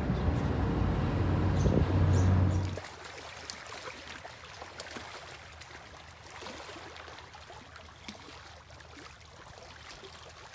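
A loud, low, steady vehicle rumble that cuts off about three seconds in, followed by quiet splashing and lapping of small waves on open water.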